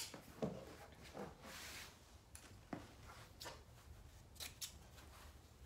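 Fabric scissors snipping through a white bed sheet, a few faint separate cuts, with the sheet rustling as it is smoothed and handled; the hemmed side edge of the sheet is being trimmed off.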